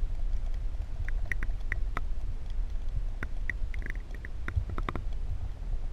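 Wind rumbling on the microphone, with a scatter of short high chirps over it.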